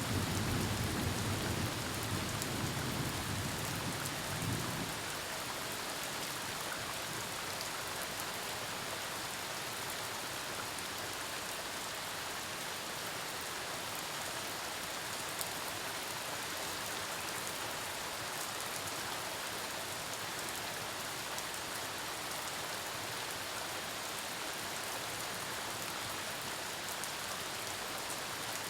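Steady heavy rain falling during a thunderstorm, with a low rumble of thunder fading out over the first few seconds.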